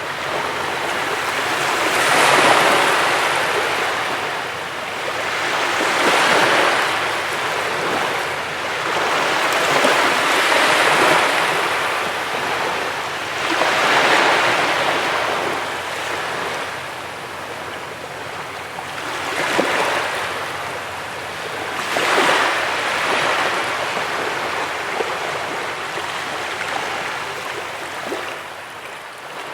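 Ocean surf breaking on a beach. Each wave swells into a hissing rush and then draws back, about six times, every few seconds.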